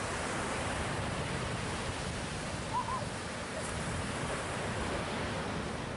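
Surf breaking and washing onto a sandy beach, a steady rush of waves. One short faint high call is heard about three seconds in.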